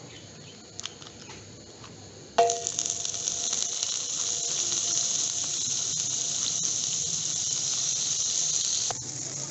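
A pat of butter drops into hot olive oil in a ridged grill pan about two seconds in and starts sizzling, a steady high hiss that eases a little near the end.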